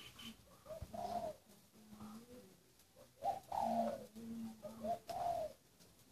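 Caged dove cooing in short phrases: a coo about a second in, another around two seconds, then a longer, louder run of coos from about three seconds in.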